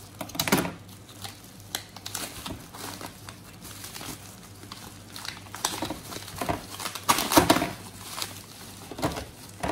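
Clear plastic wrapping crinkling as hands pull it open and crumple it, in irregular bouts, loudest about seven seconds in.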